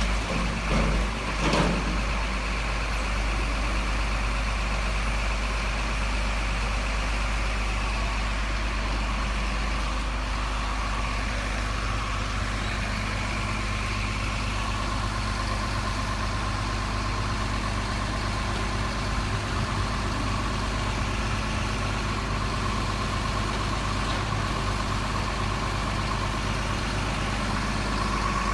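Simulated diesel truck engine idling steadily from the RC model truck's sound unit, with a couple of short knocks in the first two seconds.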